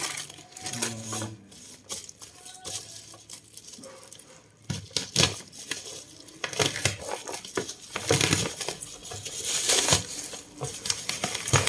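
Packaging being opened and handled: plastic wrapping crinkling and rustling, with scattered small knocks and clicks, busier from about halfway through.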